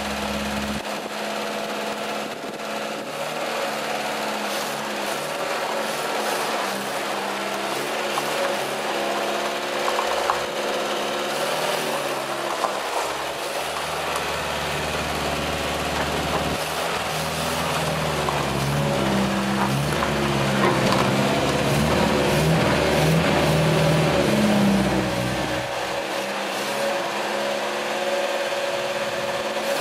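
1936 Hillman Minx car engine running as the car is driven off across gravel, the engine note rising with revs for several seconds, then its low part dropping away as it moves off about four seconds before the end.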